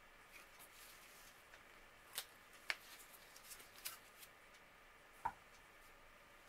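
Mostly near silence with a few small clicks and taps as a cast-iron flat iron is handled in gloved hands, then a single duller knock about five seconds in as it is set down on a wooden block.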